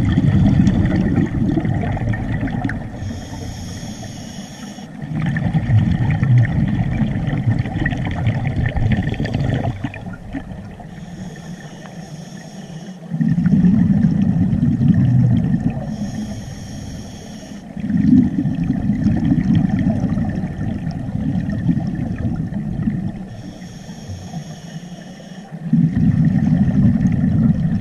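Scuba diver breathing through a regulator, heard underwater: a short hissing inhale, then a long burst of exhaled bubbles lasting several seconds, repeating in regular breath cycles.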